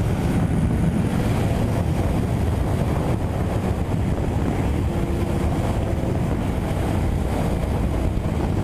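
Steady wind rush on the microphone of a Yamaha MT-07 at motorway speed, around 140 to 165 km/h. The bike's 689 cc parallel-twin engine runs faintly beneath it in sixth gear.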